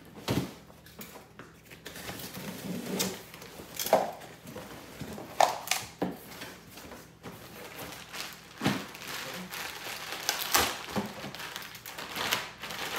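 Cardboard TV box being cut open with a box cutter: the blade scraping and slitting through the tape and cardboard, with several sharp knocks of the box and flaps, and plastic wrapping rustling near the end.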